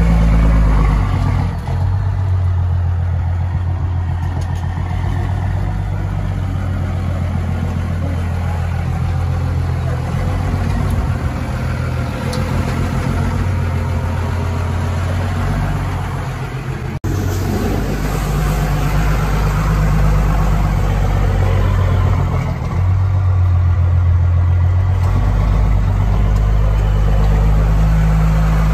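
First-generation Dodge Ram 250's Cummins 5.9-litre inline-six turbodiesel running at low speed with a steady, loud low engine note while the plow truck manoeuvres. The sound breaks off for an instant about 17 seconds in.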